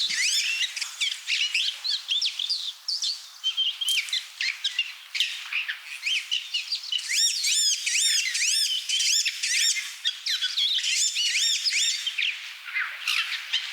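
Small songbirds chirping in a busy chorus: many quick, high, arching notes that overlap without a break.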